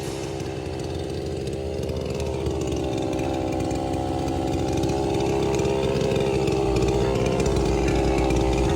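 A small petrol engine running steadily, slowly growing louder, with a deeper low hum joining near the end.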